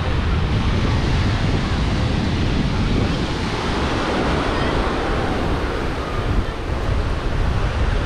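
Small waves breaking and washing up on a sandy beach, with wind buffeting the microphone as a steady low rumble.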